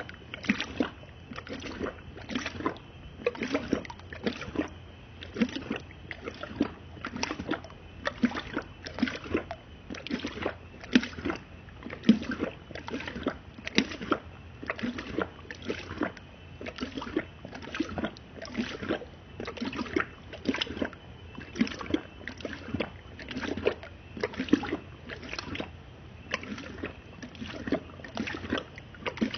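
Dog lapping water from a plastic bowl: rhythmic wet splashes and slurps, a little more than one lap a second, steady throughout.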